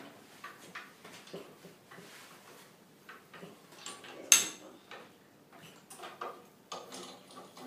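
Small clicks and knocks of hands working the metal handles and clamps on the front door of a mini autoclave bubble remover after its cycle, with one sharp, loud clack about four seconds in.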